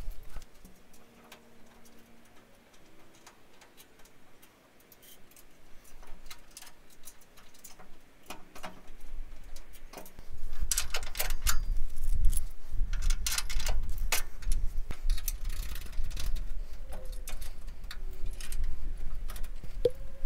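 Small metal clicks and clinks of bolts, washers and nuts being handled and threaded by hand into a steel recovery-point bracket on a vehicle chassis. The clicking grows busier and louder about halfway through, with a low rumble under it.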